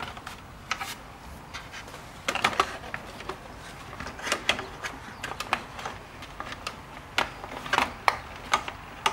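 Irregular hard plastic clicks and knocks as a C5 Corvette's center-console trim bezel is handled and fitted into place around the shifter, busiest about two seconds in and again near the end.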